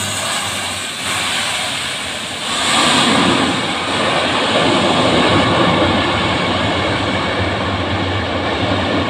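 Lockheed Martin MC-130J's four turboprop engines and propellers running loud at high power on the runway, a steady dense roar with a low hum underneath. It grows louder about two and a half seconds in.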